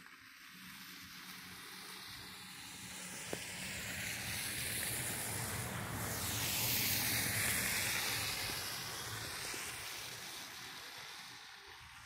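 A car passing on a wet, slushy road: tyre hiss swells over several seconds, peaks a little after the middle, then fades away.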